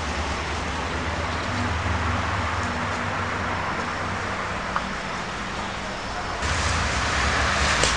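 Steady rushing outdoor background noise with a low hum underneath, growing louder about six and a half seconds in, with one faint click near five seconds.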